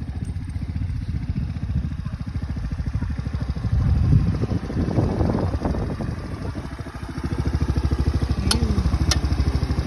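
X-Pro youth ATV's small engine running with a steady pulsing beat, picking up briefly about four seconds in and again near the end. Two sharp clicks sound near the end.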